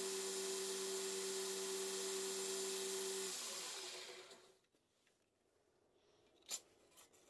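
Bench belt grinder running with a steady hum and hiss, switched off about three seconds in and winding down to quiet over about a second. One sharp tap near the end.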